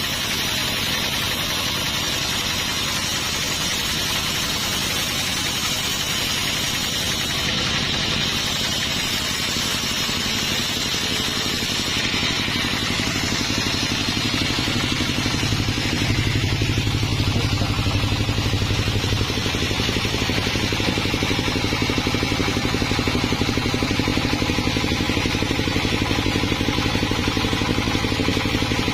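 Sawmill engine running steadily under a constant hiss, growing a little louder about halfway through.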